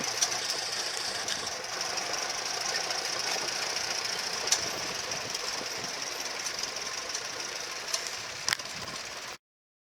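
Vintage tractor engine running steadily, with a few sharp clicks over it; the sound cuts off suddenly near the end.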